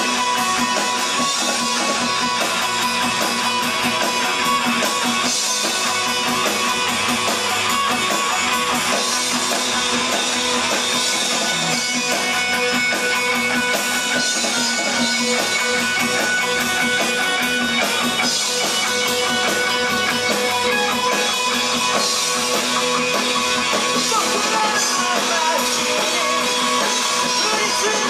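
Rock band playing an instrumental passage: strummed guitars held over a drum kit with steady cymbal strokes, no vocals.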